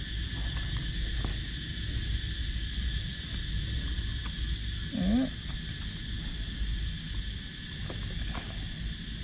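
A steady, high-pitched insect chorus drones over a low rumble, with a few faint clicks and one short exclamation about five seconds in.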